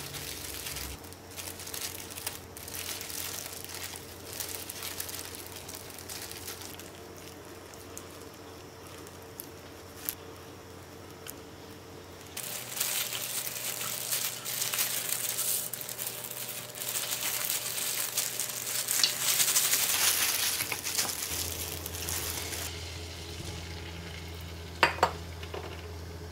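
Food sizzling and crackling in a frying pan, much louder through the middle of the stretch. Two sharp clicks come near the end.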